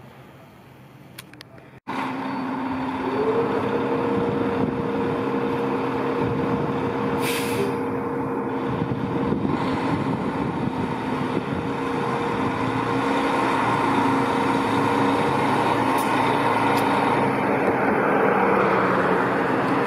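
Fire engine's diesel engine running with a steady drone and whine in the station bay, with a short sharp hiss of the air brakes releasing about seven seconds in; the engine grows louder near the end as the rig starts to pull out on a code 3 response. A faint street background comes before it for the first two seconds.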